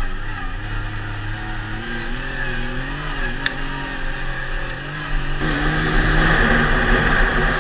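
Yamaha YXZ1000R's three-cylinder engine pulling under load while driving, its pitch rising and falling with the throttle, heard from the cockpit. A little over five seconds in it gets louder.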